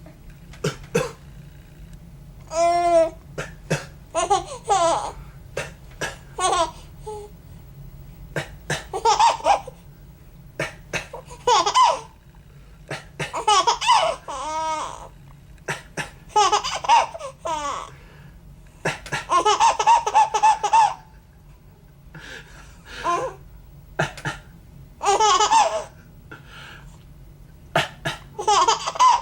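A three-month-old baby laughing in repeated bursts of high, squealing giggles, each set off by a short, sharp cough from a man just before it.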